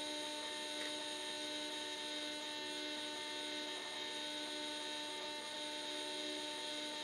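Siemens Simoreg thyristor DC drive running under power, a steady electrical hum of several tones with a higher whine on top.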